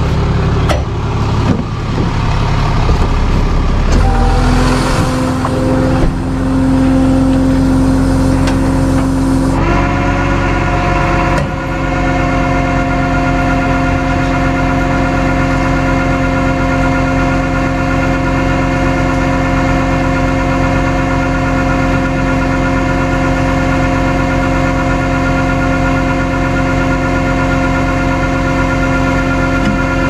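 Vehicle engine running steadily at a held speed, with a steady whine over it. Uneven noise and a few knocks come in the first few seconds before it settles.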